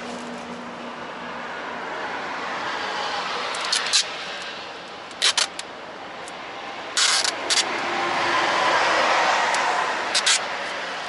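Passing road traffic: a steady rush of vehicles that swells and fades, broken by a few short, sharp clicks or rustles, twice in quick pairs.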